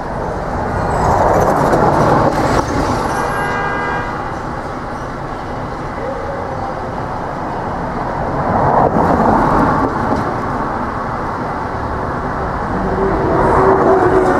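City street traffic beneath an elevated subway line: a steady rumble with vehicles passing in swells, and a short pitched tone about three seconds in.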